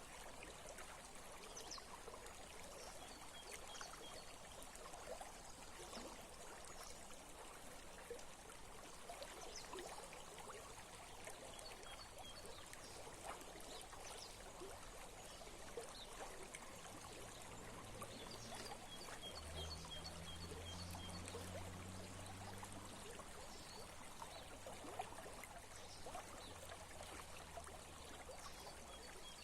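Small stream trickling and splashing. Faint high chirps come in short quick series, and a low steady hum runs through the second half, strongest about two-thirds of the way in.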